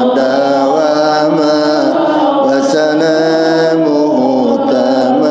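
Islamic religious chanting: a slow melody sung in long held notes that step from pitch to pitch without a break.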